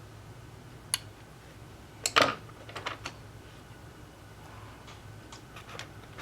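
Sharp little clicks and taps of small repair tools on an Apple Watch Series 1 being taken apart for a battery change: a single click about a second in, a louder cluster of clicks about two seconds in, then a few fainter ticks.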